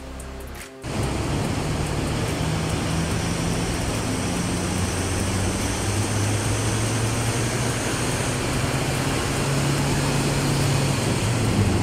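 Hyundai Starex CRDi diesel van running under load on a chassis dynamometer: a steady engine note buried in heavy roller and tyre noise, growing slowly louder. It cuts in abruptly under a second in.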